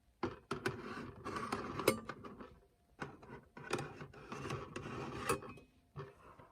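Kitchen handling noises: rubbing and scraping with light clatters of dishes and utensils, in two spells of a couple of seconds each and a short one near the end.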